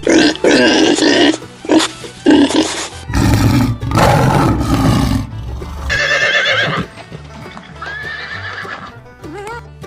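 A series of farm-animal calls, among them a horse neighing, over background music.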